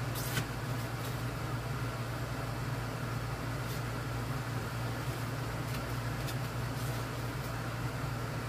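Steady low mechanical hum, with a few faint short scrapes of an old business card spreading wood putty.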